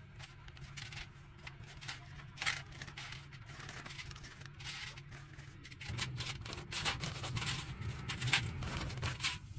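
Clear plastic parts bag crinkling and rustling while small seals and bolts are handled over a perforated steel tray, with light clicks of the parts. It gets busier about six seconds in.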